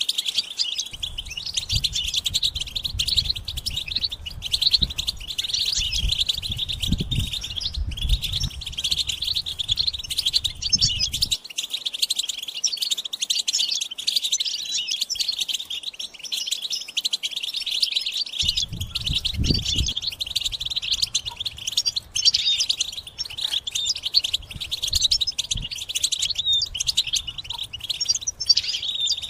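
A flock of European goldfinches chattering and twittering without pause, many high, quick calls overlapping, the chattering mating calls that stimulate male goldfinches to sing. A low rumble runs underneath for the first ten seconds or so and comes back briefly around twenty seconds in.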